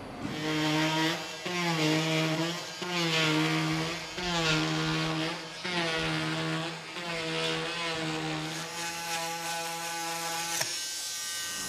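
Festool Vecturo OS 400 oscillating multitool sawing through a door frame to shorten it. Its steady pitched hum swells and eases about every second and a half as the blade is pushed into the cut, and it stops about ten and a half seconds in.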